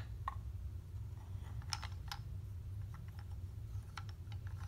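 Small wooden animal figures clicking and knocking against a wooden ark model as they are set down inside it: a few scattered light clicks, over a low steady hum.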